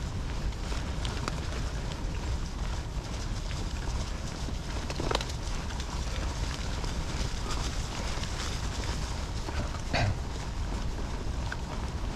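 Mountain bike on tubeless tyres rolling over a dirt and leaf-litter trail, with a steady rumble from the tyres and wind on the microphone and a constant light rattle of chain and frame over bumps. Two louder knocks come about five seconds in and again about ten seconds in.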